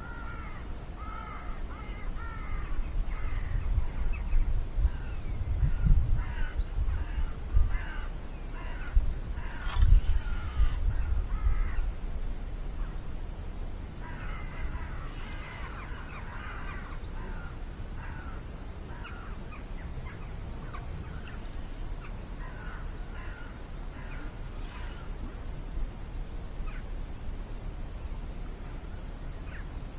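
Crows cawing repeatedly in bursts, busiest in the first half and again around the middle, with a few thin high calls from smaller birds. Low rumbling buffets on the microphone during the first half.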